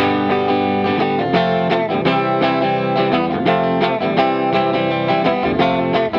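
Background music: a strummed, distorted electric guitar with a steady beat, starting abruptly.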